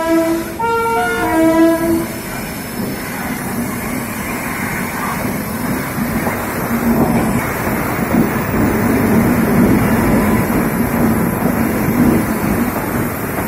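An Indian Railways WAP7 electric locomotive sounds its horn in three short blasts of alternating pitch, then rolls slowly past close by with its passenger coaches, a steady rumble of wheels on rail.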